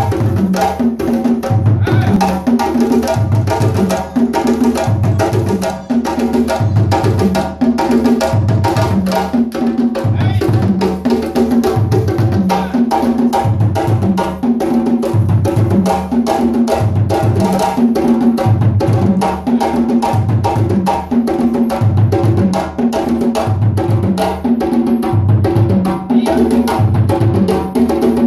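Live West African drum ensemble of djembes and dunun bass drums playing the dununba rhythm: a deep bass-drum beat about once a second under fast, dense hand-drum strokes.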